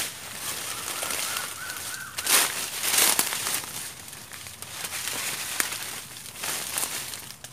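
Dry leaf litter crunching and rustling under a person's feet and hands, loudest about two to three seconds in. A faint high bird call rising in small steps during the first two seconds.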